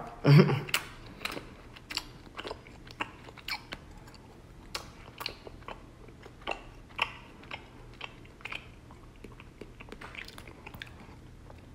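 A person chewing a mouthful of raw honeycomb with the lips closed: short, irregular smacking and clicking sounds go on throughout as the waxy comb is worked over. Honeycomb takes a long time to chew.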